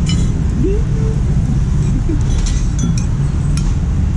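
Steady low rumble of street traffic, with a few light clinks of spoons and dishes on the table, one right at the start and a cluster a little past halfway.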